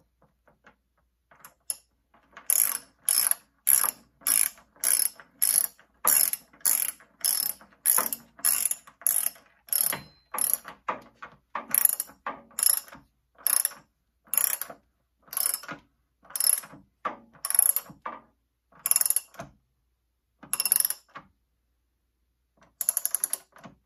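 Ratchet wrench clicking in short runs, about two a second, on each back-swing of the handle as it tightens a new anode rod into the top of an electric water heater tank. The clicking starts a couple of seconds in, stops near the end, and comes back for one last short run.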